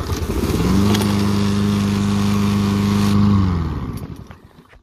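Walk-behind lawnmower's small single-cylinder engine starting up, quickly settling into a steady run, then winding down in pitch and stopping about a second before the end.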